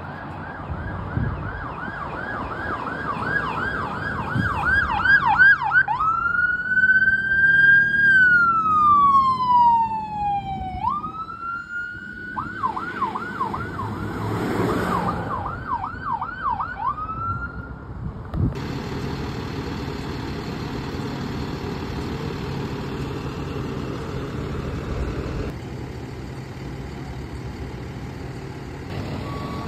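Electronic emergency-vehicle siren on responding fire rescue units: a fast yelp, then one slow rising-and-falling wail, then the yelp again, with a brief loud horn-like blare partway through. About two-thirds of the way in the siren stops, and a steady idling engine drone of the apparatus on scene follows, with short beeps starting at the very end.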